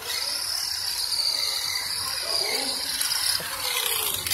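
WLtoys RC truck's electric motor and gearing whining at a high pitch, the whine dipping and rising as the throttle changes, then dying away near the end.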